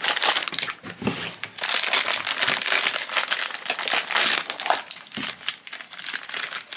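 Foil blind-box pouch crinkling as it is pulled from its cardboard box and torn open by hand: a dense run of sharp crackles.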